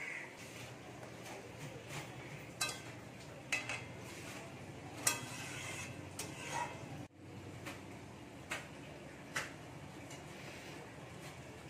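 A handful of sharp, scattered clinks of metal utensils against a metal kadai over a faint steady background.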